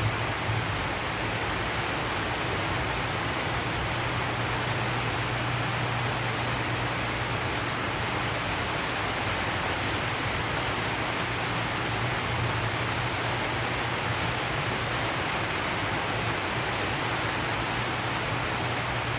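Steady, even rain on a zinc sheet roof, an unbroken hiss with a constant low hum underneath.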